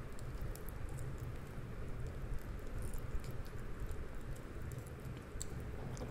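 A kitten chewing and gnawing the meat off a fried chicken drumstick: small, irregular wet clicks from its mouth and teeth over a steady low hum.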